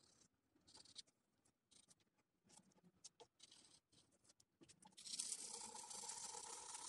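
Graphite pencil scratching on drawing paper in short, separate strokes, then one longer continuous stroke, the loudest part, over about the last two seconds.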